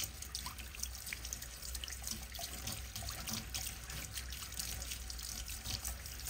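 Water from a tap running steadily and splashing over a steel knife blade and the hands rubbing it, into a ceramic sink.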